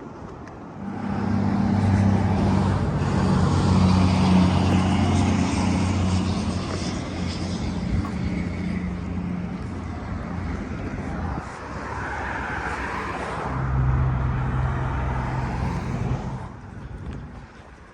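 Motor vehicles passing on a highway: a long pass with engine hum and tyre rush, then a second engine passing shortly after, fading near the end.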